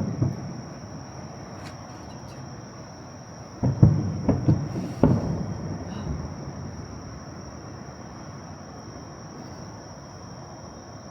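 Insects singing, one steady high-pitched drone, over low outdoor rumble, with a few dull low thumps about four seconds in.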